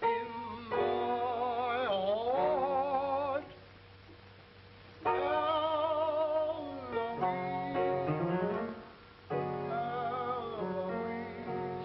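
A slow sentimental song with piano, its melody in long, wavering held notes, played in phrases separated by short quieter pauses.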